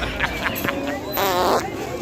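Prank fart sound effect: one short, wavering blast about a second in, over background voices.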